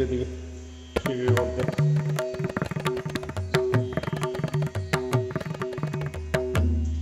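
Background music in Indian classical style: rapid tabla strokes over a steady drone, with a brief pause about a second in, the drumming stopping near the end and leaving a low held note to fade.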